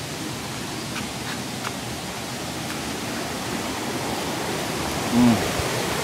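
Steady rush of jungle stream water or a waterfall, growing slowly louder. About five seconds in comes a short, low sound from a person's voice.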